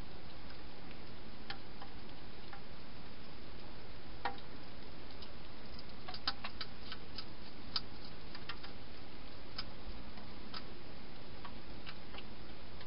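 Wild hedgehog crunching dry food, heard as scattered sharp clicks at an irregular pace, thickest about halfway through, over a steady hiss.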